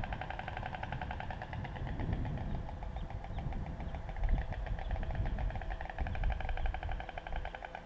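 White storks clattering their bills at the nest: a fast, dry rattle of many clicks a second that carries on with a slacker stretch midway. A low rumble runs underneath.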